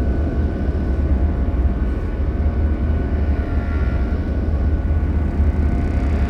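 Horror ambience sound effect: a steady, deep rumbling drone with faint high tones held above it.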